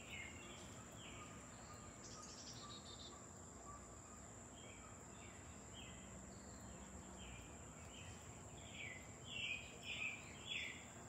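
Faint outdoor ambience: a steady high-pitched insect drone, with a bird calling in short repeated notes, a few near the start and a longer run in the second half.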